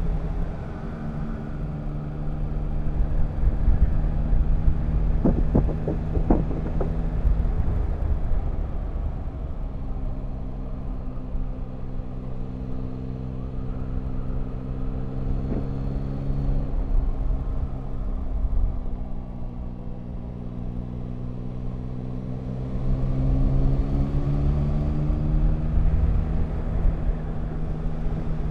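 Motorcycle engine running under way over low wind rumble, its note stepping down about eight to ten seconds in and rising again near the end as the bike speeds up. A few sharp clicks sound about five to seven seconds in.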